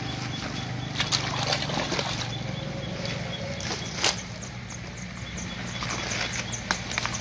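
Fish flapping and splashing in wet mud and shallow water as they are picked from a net into a mesh bag, with sharp knocks now and then, over a steady low motor hum.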